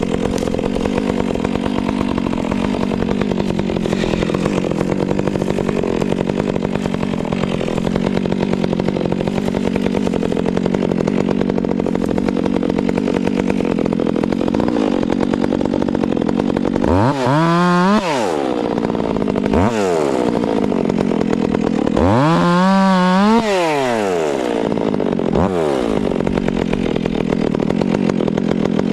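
Two-stroke chainsaw running steadily under load in a cut for more than half of the stretch. From then on it is revved up sharply and falls back again several times.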